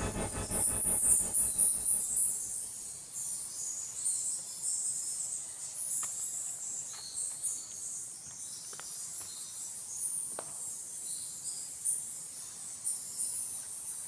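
Insects chirring in a steady, high-pitched pulsing trill, with a few sharp ticks scattered through. A louder sound with several tones fades out over the first two seconds.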